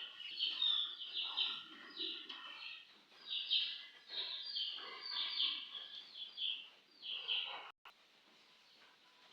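Small birds chirping busily, many short repeated chirps overlapping, which stop suddenly near the end.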